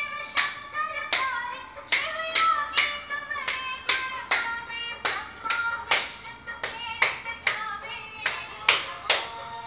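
Devotional aarti sung to Durga, with hands clapping in an even beat of about two claps a second under the singing.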